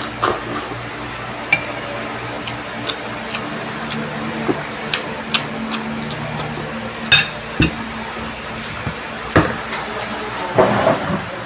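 Metal spoon clinking and tapping against a ceramic bowl of rice in a series of sharp, irregular ticks, the loudest about seven and about nine seconds in, over a steady low hum.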